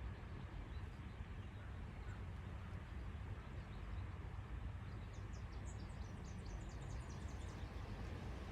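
Outdoor ambience with a steady low rumble. About five seconds in, a small bird sings a quick run of short, high notes for a few seconds.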